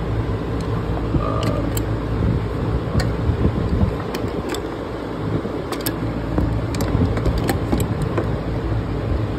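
Scattered, irregular light metallic clicks and taps of hand tools working on a bolt and metal bracket, over a steady low hum.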